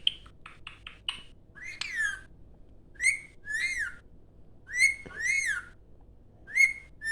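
Indian ringneck parrot whistling: a quick run of short clicky chirps, then three pairs of rising-and-falling whistled notes, a short one followed by a longer swooping one.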